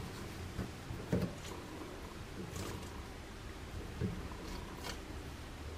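Cloth towel pushed into and rubbed around the open cartridge housing of a single-lever mixer faucet to soak up the water left inside. Short rustles and a few dull bumps, the loudest about a second in and again about four seconds in.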